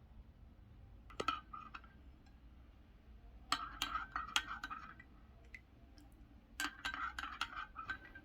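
A metal spoon stirring and clinking against a dish in three short bouts, about a second in, around four seconds and around seven seconds, each clink ringing briefly: honey being stirred into the drink.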